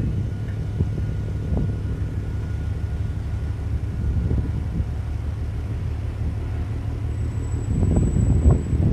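Wind buffeting the microphone over a steady low rumble, with heavier gusts about a second before the end.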